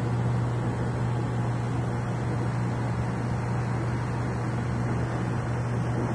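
Aquarium pump humming steadily in a low even drone, with the hiss of bubbling water over it.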